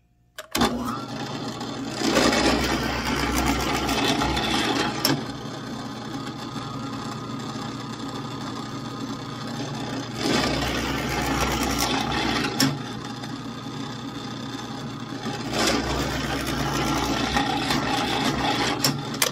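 Electric drill running steadily, its bit boring into a wooden wheel block three times: about two seconds in, near the middle and near the end. The motor starts about half a second in.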